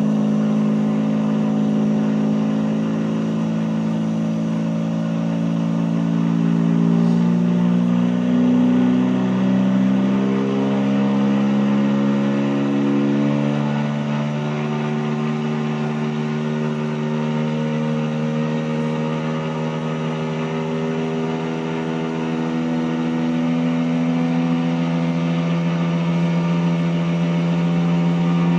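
Single-rotor Mazda rotary aircraft engine conversion running steadily, its pitch rising and falling slightly as the engine speed shifts.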